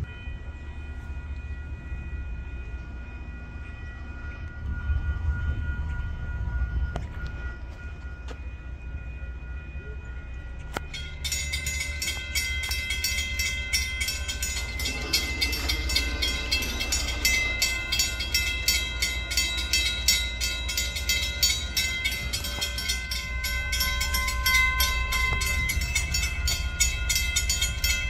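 Railroad crossing bell starts ringing abruptly about eleven seconds in and keeps striking in a rapid, even rhythm, the warning that a train is approaching. A low rumble runs underneath.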